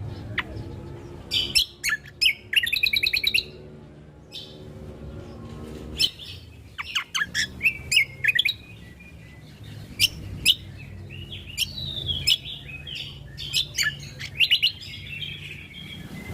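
Greater green leafbird (cucak kombo) singing: a varied run of sharp chirps, whistles and fast rattling trills in bursts, over a steady low hum.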